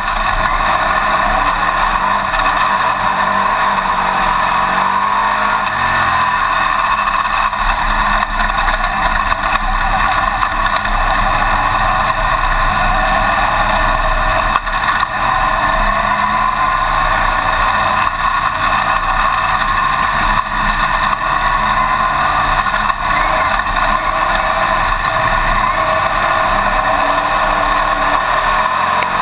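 Winged dirt-track modified race car's engine running loudly and steadily, heard from inside the open cockpit together with the rush of wind.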